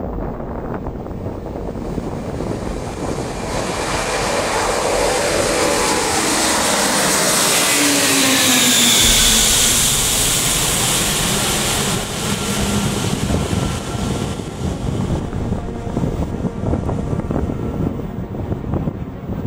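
Jet engines of the Antonov An-225 Mriya, six turbofans, as the aircraft passes by. The noise swells to a peak about nine seconds in while the engine whine falls in pitch as it goes past, then settles into a steady rumble as it moves away.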